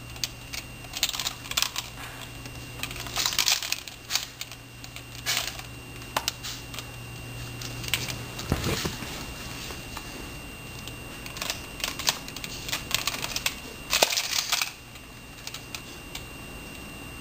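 Small plastic penguin toys clicking and clattering together in irregular bursts as they are handled.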